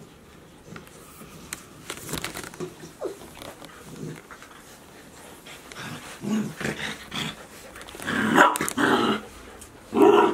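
Golden retriever puppies play-fighting, with short growls and yaps in irregular bursts that grow louder toward the end.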